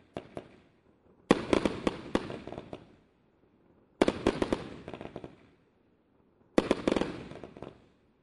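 'Sound Barrier' firework going off in repeated bursts about two and a half seconds apart. Each burst is a sharp bang followed by a quick run of smaller cracks that fades out. The end of an earlier burst is heard at the start, then three full bursts follow.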